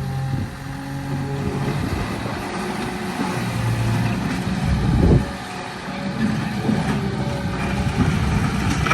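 Small bulldozer's engine running, its pitch shifting as it works, with a brief louder burst about five seconds in, after which it drops quieter.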